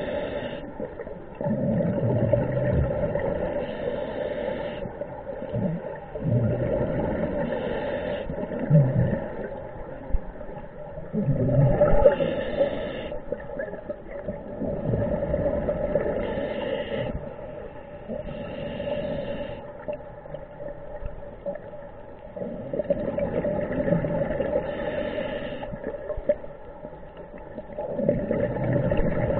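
Scuba diver breathing through a regulator underwater: a short hissing inhale, then a bubbling rumble of exhaled air, repeating every few seconds over a steady low hum.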